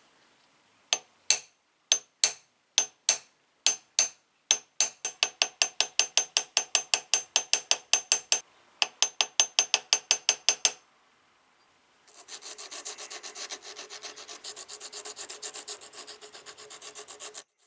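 Small hand file worked on the metal of a jeweler's saw frame: a run of separate sharp strokes that speed up to about five a second, a short pause, then about five seconds of fast continuous rasping.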